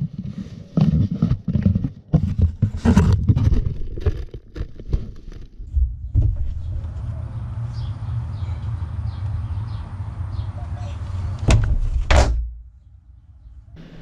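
Rummaging and knocking about inside containers, then a hollow plastic bin lid banging shut with two sharp knocks close together near the end. A steady low rumble runs under the middle part and stops with the lid.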